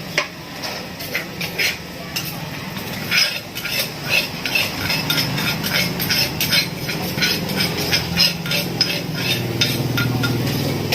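Seafood papaya salad being mixed in a mortar: a spoon and pestle knock and scrape against it in many quick clicks, with a low steady hum underneath.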